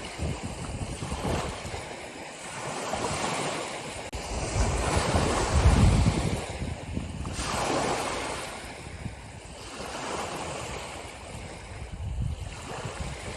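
Ocean waves breaking and washing ashore, swelling and ebbing every few seconds, with the biggest surge about six seconds in.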